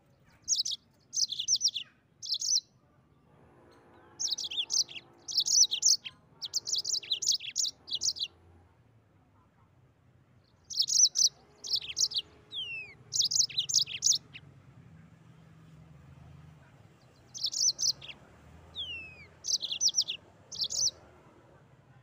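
Yellow-fronted canary (Mozambique canary) singing: bouts of fast, high, trilling chirps with a few falling whistled notes, four phrases separated by pauses of a second or two.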